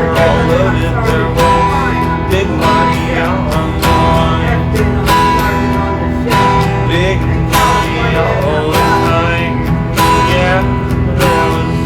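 A guitar-led song with a steady drum beat, in a stretch without sung words.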